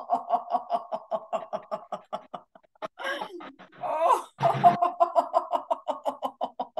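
A woman laughing on purpose in a laughter-yoga exercise: a quick, rhythmic run of 'ha-ha' pulses, broken by a sharp gasp of breath about three seconds in and again about four and a half seconds in, then going on.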